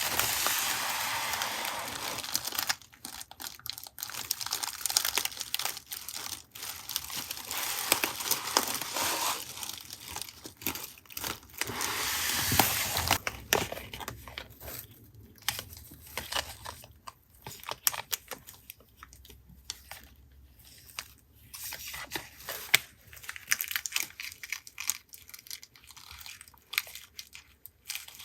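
Paper and plastic packaging being handled, crinkled and torn open by hand, in irregular rustling stretches with sharp crackles and short pauses.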